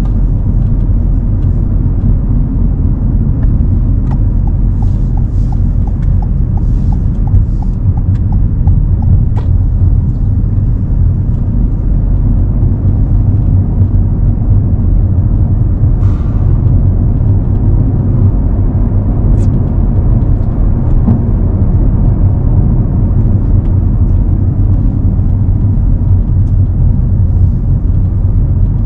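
Cabin noise inside a moving Toyota Corolla hybrid hatchback: a loud, steady low rumble of the car on the road. About four seconds in, a run of light, evenly spaced ticks lasts about five seconds.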